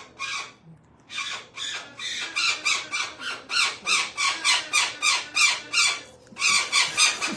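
Pet parrot squawking over and over in a fast run of short, harsh calls, about three or four a second, with a brief break near six seconds. It is the distress calling of a bird being held for microchipping.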